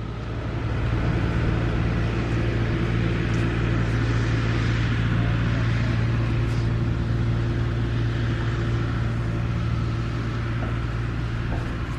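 A motor vehicle's engine running steadily, a low hum with a hiss over it, growing louder about a second in and easing slightly near the end.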